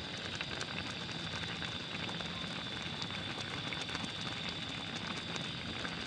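Spicy kimchi noodle soup boiling in a metal pot: steady bubbling with many small crackling pops.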